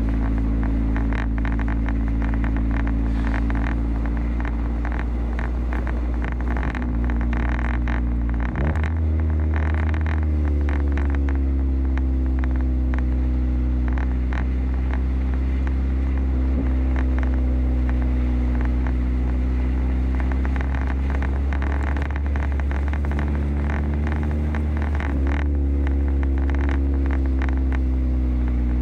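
Car engine running steadily, heard from inside the cabin while driving on a snow-covered road, with scattered crackling ticks from the tyres on packed snow. The engine note shifts abruptly about nine seconds in and again about 25 seconds in, as with gear or speed changes.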